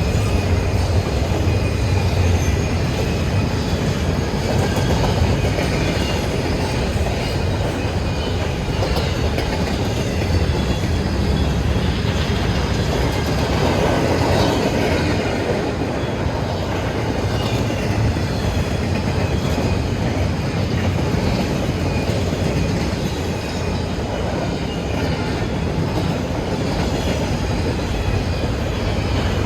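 Freight train cars rolling past at close range, a steady rumble and clatter of steel wheels on the rails, with a faint high wheel squeal.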